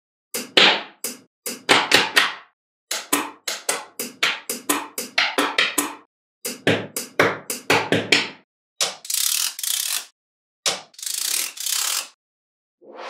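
Small magnetic balls clicking and snapping together as they are set onto a model, in quick runs of sharp clicks. Near the end come two stretches of about a second each of continuous rattling noise.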